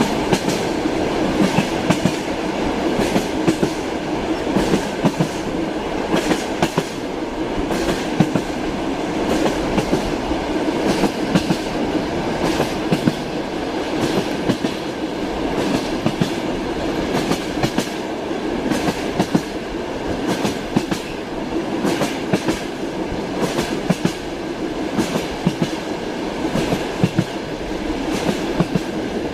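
Train running along the track: a steady rumble with the wheels clattering over rail joints, many short clicks throughout.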